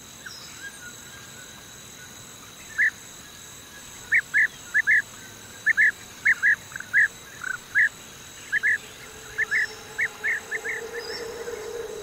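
Bee-eaters calling: about twenty short, sharp notes, often in quick pairs, repeated irregularly over several seconds. A faint steady high whine sits behind them, and a low steady hum swells up near the end.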